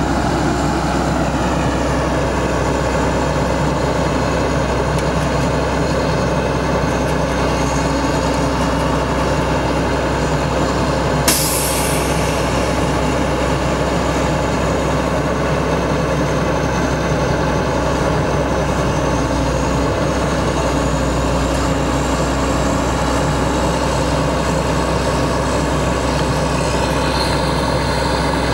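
International DT466 inline-six diesel of a bucket truck running steadily to power the Elliott boom lift as the boom moves. About eleven seconds in, a short sharp hiss of air cuts through once and fades.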